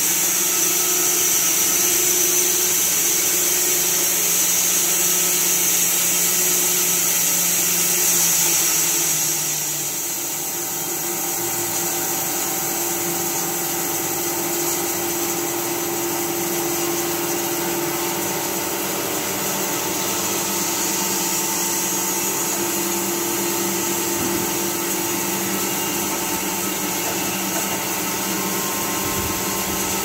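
Carpathian SMSA 110 sawmill running steadily under power. About ten seconds in, a high hiss and a low hum drop away and the machine settles into a slightly quieter, steady running note at a different pitch.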